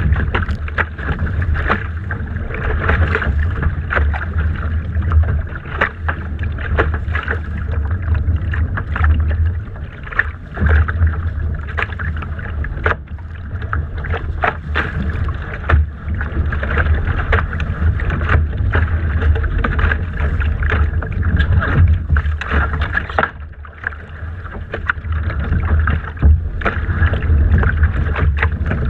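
Wind buffeting a deck-mounted camera microphone on a Laser sailing dinghy, with water splashing and slapping against the hull in frequent sharp slaps over a steady rumble.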